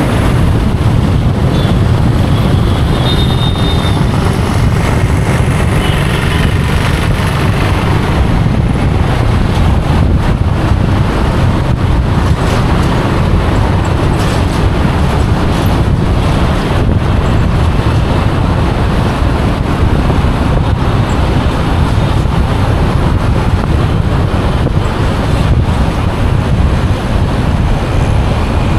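Steady low rumble of wind on the microphone and road noise from a vehicle driving along a city road, with surrounding traffic mixed in.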